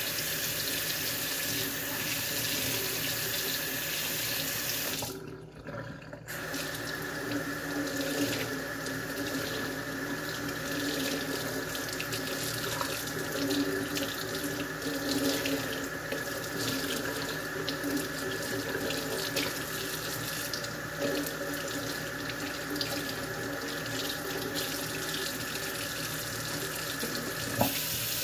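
Kitchen faucet running into the sink as dishes are rinsed. The water stops for about a second around five seconds in, then runs again steadily.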